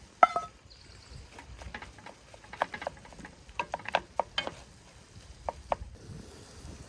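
A metal utensil strikes a pan or dish once with a short ring, then taps and clicks against it a dozen or so times.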